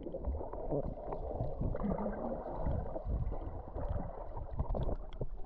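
Sea water sloshing and splashing right around the camera, a dense muffled wash with many small splashes.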